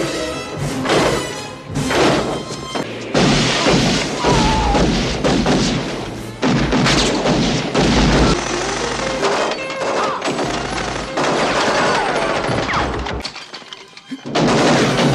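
Action-film soundtrack cut from scene to scene: gunshots, heavy thuds and crashes over a music score, with a brief lull near the end.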